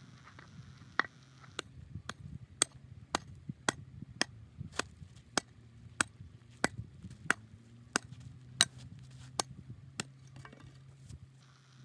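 Pickaxe striking a hard dirt road, sharp blows about two a second, starting about a second in and stopping near the end.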